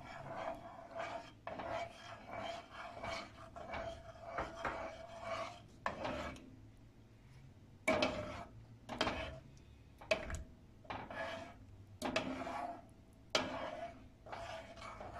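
Metal spoon stirring thick fesenjoon stew, scraping against the bottom and sides of the pot in repeated strokes: quick and steady for the first several seconds, then slower, separate and louder scrapes.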